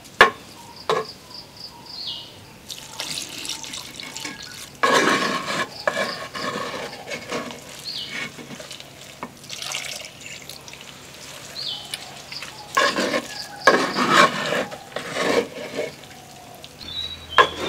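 A spoon stirring and mashing soft cooked rice with coconut milk in a clay pot, making milk rice: wet squelching and scraping in irregular strokes, with two sharp knocks near the start.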